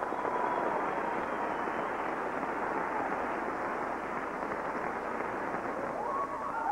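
Theatre audience applauding steadily, with shouts and cheers rising near the end.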